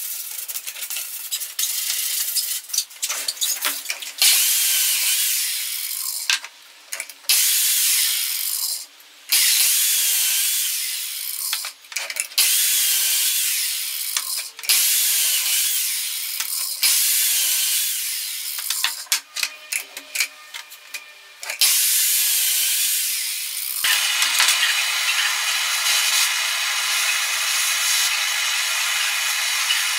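Sandpaper rubbing on an OSB box edge at first. Then a power tool runs in about eight short bursts, each cutting in suddenly and dying away over a second or two. In the last few seconds a handheld gas blowtorch burns with a steady hiss.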